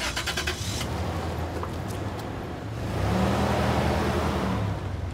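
A car engine running as the car drives by, swelling to its loudest about three seconds in and easing off near the end. A quick rattle of sharp clicks comes at the start.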